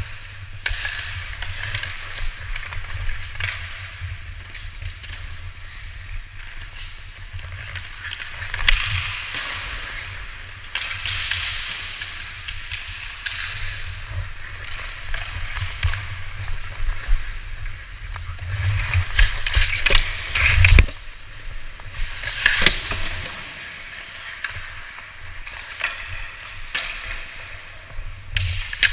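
Hockey skate blades carving and scraping on ice, with a low rumble underneath and a few sharp knocks. The loudest knock comes about 21 seconds in, with others about 9 and 22 seconds in.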